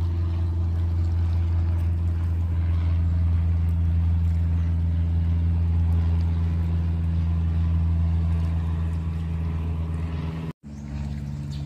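Boat engine running with a steady low drone. Near the end it cuts off sharply and comes back quieter at a slightly different pitch.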